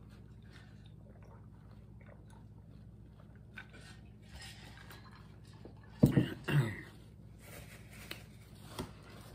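Quiet mouth sounds of drinking and chewing, then about six seconds in a sharp knock and a second loud sound just after as a glass of iced drink is set down on the table.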